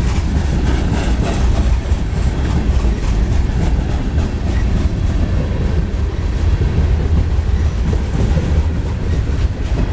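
CSX coal train's string of coal cars rolling past on the rails: a steady, loud rumble of wheels on track, with clatter over the joints and no let-up.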